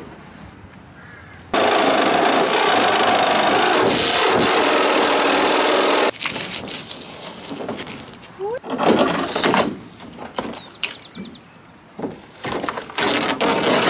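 Power tool cutting through a van's sheet-metal side panel to make a window opening: a loud, steady cutting noise that starts and stops abruptly, then shorter uneven bursts of cutting and scraping.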